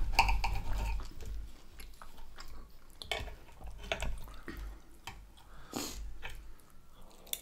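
Close-miked chewing and mouth sounds of people eating a meal, with scattered light clicks of a knife and fork on plates.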